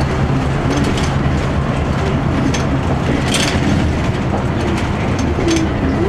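Cabin of a 2002 Blue Bird CS transit bus under way: a steady drone from its Cummins ISC diesel drivetrain and road noise. Interior rattles and clicks sound over it, with one sharper click about three and a half seconds in.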